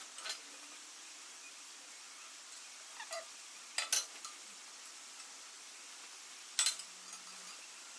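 Chrome steel bar clinking and knocking against the steel excavator bracket and washers as it is handled and slid into the pin holes. It makes a handful of sharp metal clinks, the loudest a pair about four seconds in and another just before seven seconds.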